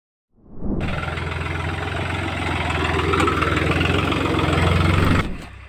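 Tractor diesel engine running steadily under load while pulling a disc plough through the soil. It starts suddenly just after the beginning and drops abruptly to a much quieter level near the end.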